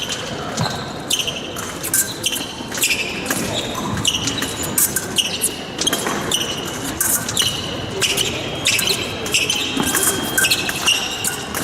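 Fencers' footwork on the piste: shoes squeaking again and again, with steps and stamps, every half second to a second or so.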